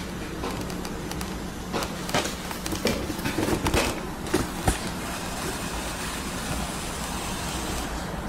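Steady hum and airy hiss from a running hot-air rework station. From about two to five seconds in, a hand handling the unit makes a series of clicks and knocks.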